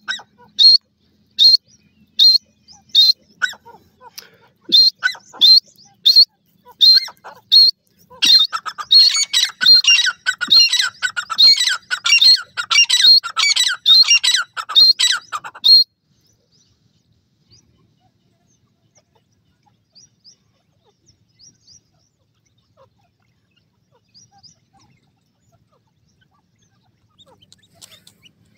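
Grey francolin calling: sharp, high, loud notes repeated a little faster than once a second, then a fast, crowded run of calls from about eight seconds in that cuts off suddenly at about sixteen seconds. After that only a few faint chirps.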